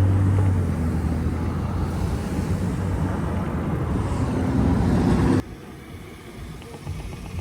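Road traffic: car and truck engines running and passing, a steady low rumble that cuts off abruptly about five seconds in, leaving fainter traffic noise.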